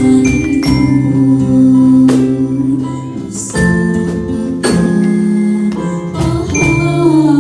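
Instrumental music: sustained chords with bell-like struck notes, the chord changing every second or two.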